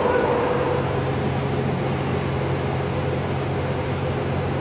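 Steady low hum of an idling diesel engine, over even outdoor background noise.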